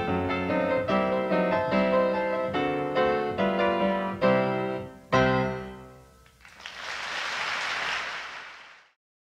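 Piano music: a run of notes and chords ending on a final chord that dies away about six seconds in. A soft, even rushing noise then fades in for about two seconds and fades out.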